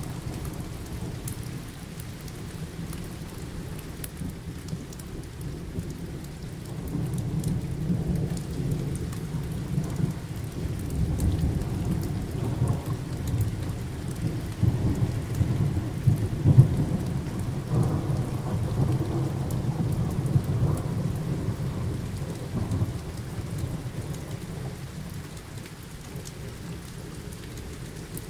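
A long roll of thunder over steady rain. The rumble builds about a quarter of the way in, is loudest around the middle, and dies away near the end.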